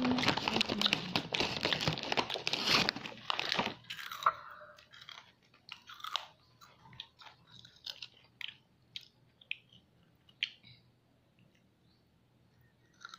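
Crunchy snack, likely chicharon, chewed close to the microphone: dense loud crunching for about the first four seconds, then scattered single crunches that thin out.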